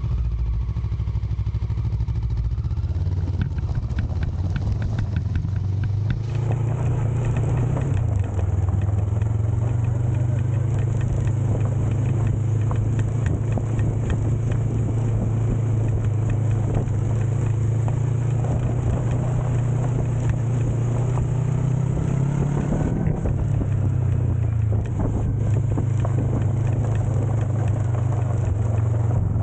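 Motorcycle engine running steadily under way on a gravel track, its pitch shifting a few times as the throttle changes: dropping about a quarter of the way in, slowly rising, then dropping again later on.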